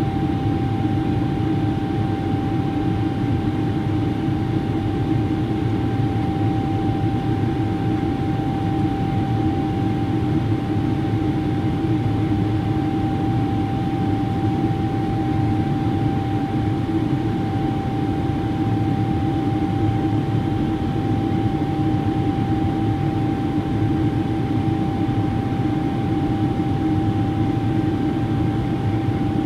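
Boeing 777-300ER's GE90-115B turbofan heard from inside the cabin in flight: a steady deep rumble of engine and airflow noise with a thin whine held on one pitch above it, unchanging throughout.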